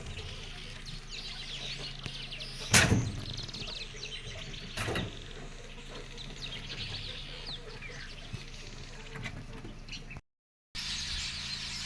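Poultry clucking among a steady chatter of small chirps. There is a loud knock about three seconds in and a softer one about two seconds later, and the sound cuts out for half a second near the end.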